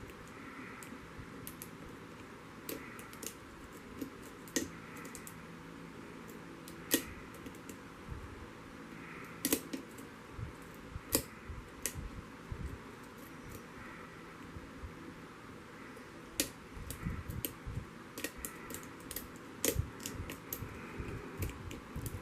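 Small, irregular metal clicks and ticks of a lock pick working the spool pins of a pin-tumbler lock held under a tension tool, some clicks sharper and louder than others.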